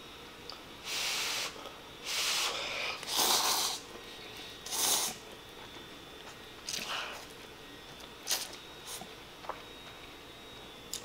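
A person slurping sauce-flavoured cup yakisoba noodles off chopsticks: four loud slurps in the first five seconds, then softer, shorter mouth and eating sounds.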